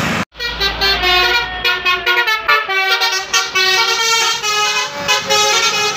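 Bus 'telolet' musical air horn playing a quick tune of many short notes stepping up and down in pitch, starting about a third of a second in.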